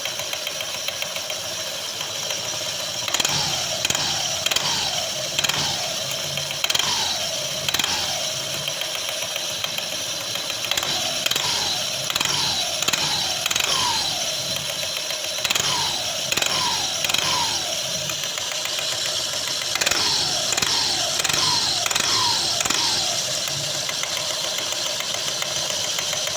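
Honda PCX scooter engine and belt drive running at idle, a steady whine broken by repeated short revs whose pitch drops quickly back to idle, often several in a row. The owner reports that the drive belt vibrates and slaps against the metal casing as the engine settles back to idle, which a mechanic has judged normal.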